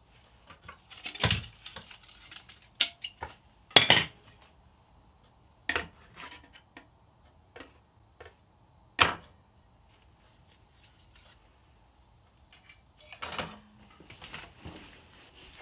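Irregular clicks and knocks of a graphics card's aluminium heatsink and plastic dual-fan shroud being handled and fitted together on a table, the loudest knock about four seconds in.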